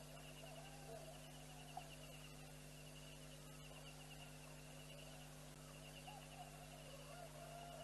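Near silence: a steady low electrical hum under a faint, high, pulsing trill that comes and goes every second or so.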